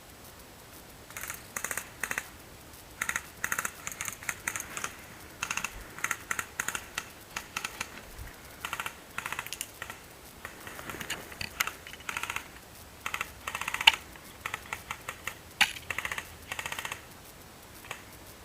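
Airsoft guns firing many short bursts of rapid clicks, one after another, with brief gaps between bursts.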